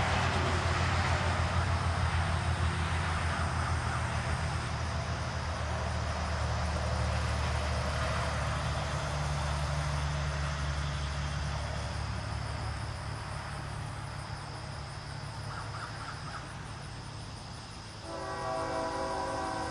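A steady low rumble that slowly fades, then, about eighteen seconds in, a diesel locomotive's air horn starts sounding a chord of several notes.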